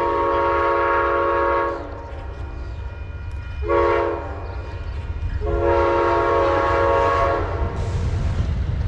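Diesel locomotive air horn of an approaching Amtrak P42 sounding a long blast, a short blast about four seconds in, then another long blast, over a steady low rumble of the train that grows louder toward the end.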